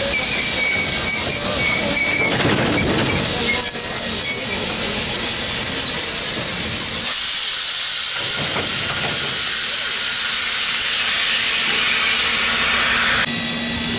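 Steam hissing from 1878-built steam locomotive 1210 while it stands stationary, a loud steady hiss that swells about five seconds in and eases shortly before the end.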